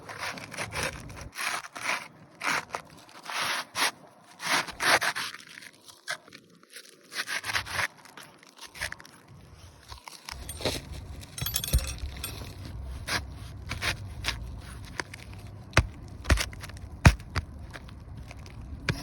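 A new asphalt roof shingle being slid up under the tabs of the surrounding shingles, scraping in repeated strokes. In the second half a low rumble sets in, with a few sharp taps.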